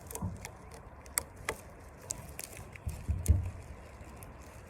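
Rubber band being stretched around a watermelon: a few small snaps and clicks, and a soft thump about three seconds in.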